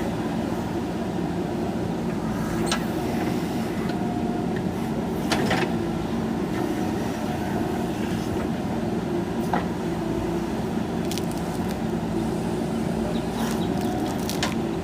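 JCB backhoe loader's diesel engine running steadily at a constant pitch, with a few sharp knocks now and then.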